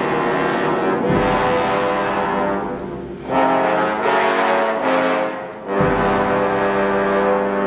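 Orchestral ballet music with full, sustained brass chords, punctuated by low drum strokes about a second in and again near the end.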